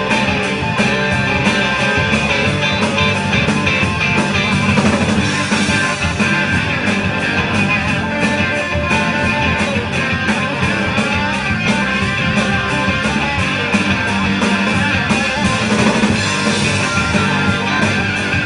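Live rock band playing loudly: electric guitars over a drum kit, heard from within the audience.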